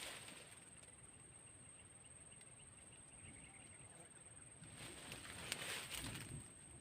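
Near silence: a faint steady high-pitched whine, with a few soft rustles about five seconds in.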